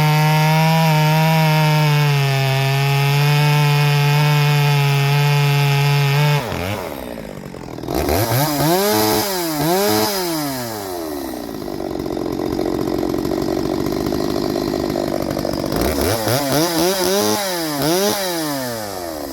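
Stihl 023C two-stroke chainsaw cutting semi-green wood at full throttle, its pitch held steady and a little pulled down by the load. About six seconds in the note drops away. The saw is then revved in a few quick rising-and-falling blips, idles, and is blipped again several times near the end.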